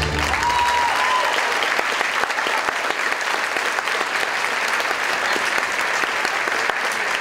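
Theatre audience applauding steadily as the orchestra's final chord cuts off just at the start, with a single brief shout rising over the clapping in the first second.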